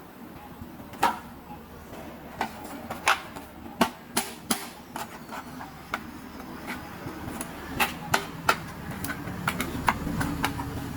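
Small plastic toy pieces being handled during an unboxing: irregular clicks and taps, a dozen or more, some sharper than others.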